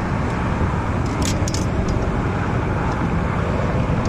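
Steady low rumbling background noise, with a few faint light splashes of water about a second in as a small bass is let go at the surface.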